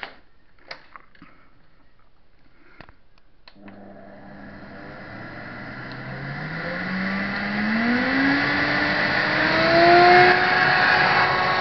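A few clicks and handling knocks, then about four seconds in a vacuum cleaner's motor switches on and spins up. Its whine rises steadily in pitch and grows louder, levelling off near the end.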